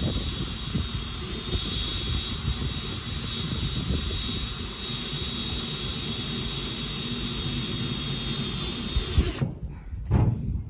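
Cordless drill running steadily with a high whine, pressed down into the bus roof, cutting off abruptly about nine and a half seconds in. A low rumble of wind on the microphone lies underneath.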